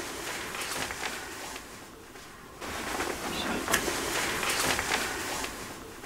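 Boosted replay of a few seconds of room audio: hiss, rustling and clicks with a faint, indistinct voice, which the uploader captions as the Dutch words 'schat, wat is dat' ('honey, what's that') and presents as an EVP. A second, louder pass of the replay starts about two and a half seconds in.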